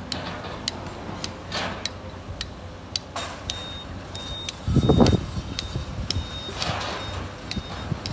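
Sany hydraulic excavator loading a truck: scattered sharp clicks and knocks of stone, then a loud rush of sand and rock about five seconds in as the bucket empties into the truck bed. Short high beeps repeat through the second half.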